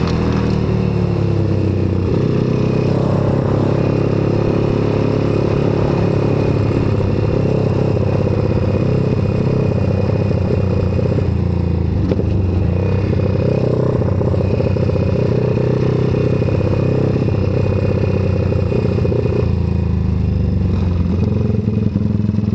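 1978 Yamaha TT500's single-cylinder four-stroke engine running hard in a dirt flat-track race, heard from on board the bike, its pitch rising and falling as the rider works the throttle through the turns.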